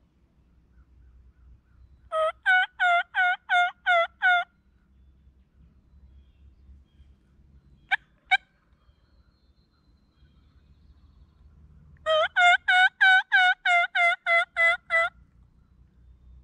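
Hen turkey yelping: a run of about seven evenly spaced yelps about two seconds in, two short sharp clucks midway, then a longer run of about eleven yelps near the end, all loud and close.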